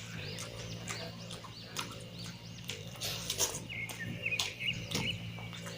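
Close-miked chewing and lip-smacking of a mouthful of mutton curry and rice: wet mouth clicks and smacks in quick, irregular succession over a low steady hum.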